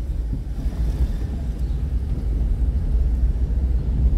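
Steady low rumble of a car driving slowly, its engine and tyre noise heard from inside the cabin.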